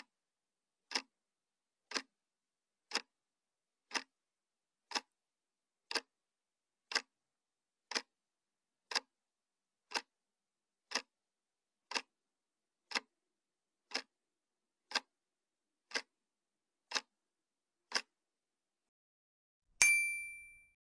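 Countdown timer sound effect: a clock ticking once a second, then a single bright ding near the end that fades away, marking the answer being revealed.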